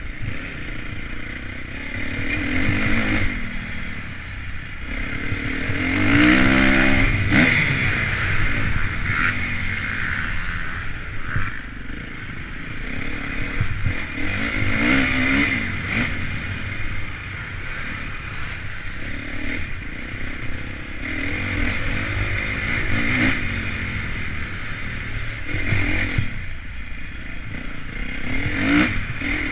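Honda CRF450 motocross bike's single-cylinder four-stroke engine being ridden hard, revving up and falling back again and again through the gears and corners, with the strongest rising rev about six seconds in.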